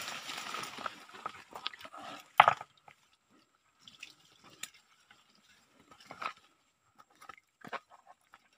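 Hands splashing and dripping in the shallow water of a rocky stream while feeling among the stones: scattered small splashes, the loudest about two and a half seconds in and another about six seconds in.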